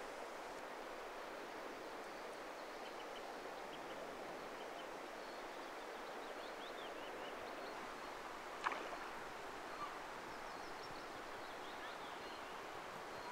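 Faint, steady outdoor hiss with small birds chirping in the distance now and then, and one sharp click about nine seconds in.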